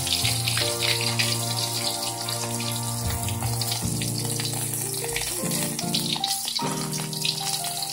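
Salted fish frying in hot oil in a wok, sizzling with a dense spatter of crackling pops from water still left on the fish. Background music with sustained notes plays under it.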